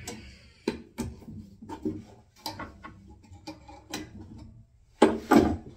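A spanner clicking and knocking on a brass radiator valve as the valve is opened, a string of short sharp metal clicks, then a louder clatter about five seconds in.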